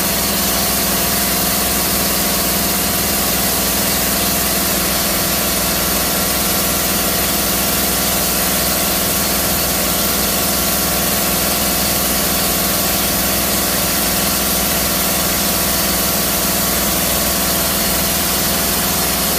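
Steady hum and hiss of running machinery, with several constant tones and no change in level.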